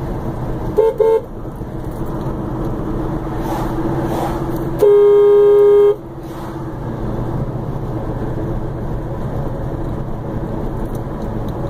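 Car horn: two short toots, then a little later one long blast of about a second, over the steady hum of a car's engine and tyres on the road.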